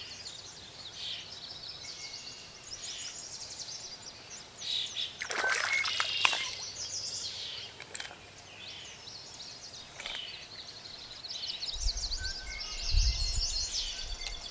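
Several songbirds chirping and trilling. There is a brief noisy burst about six seconds in and a low rumble near the end.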